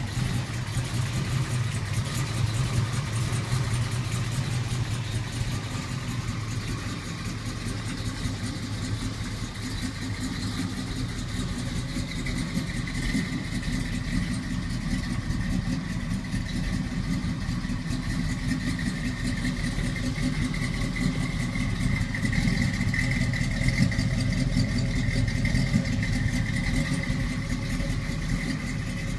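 1980 Oldsmobile Cutlass 442 W-30's V8 engine idling steadily.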